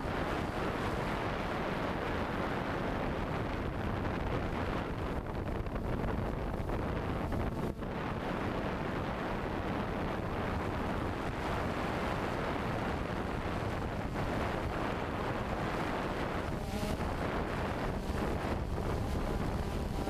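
DJI Phantom 2 quadcopter in flight, heard from its onboard GoPro: a steady rush of wind and propeller wash, with the motors' whine showing through faintly near the end.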